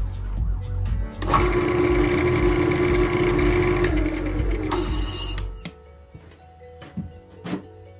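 Wood lathe with a tool working a spalted beech bowl: a loud hiss over the motor's steady hum for about three seconds, then a whine falling in pitch as the lathe spins down. Two sharp knocks follow near the end, and background music with a steady beat runs under the first part.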